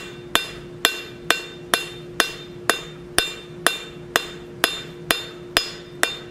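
Cross-peen hammer with a 3/8 inch radius peen striking hot mild steel on an anvil in a steady rhythm, about two blows a second, each with a short metallic ring, over a steady low hum. The blows are set side by side, not on top of each other, to texture the face of a forged oak leaf.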